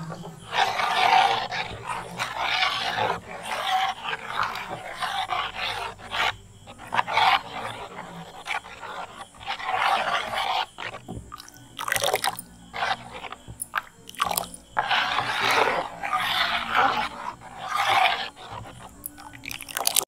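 A steel ladle stirring a thick milk mixture in a steel vessel, swishing and scraping the pan in repeated strokes about one a second, with a few short pauses and occasional clicks of metal on metal.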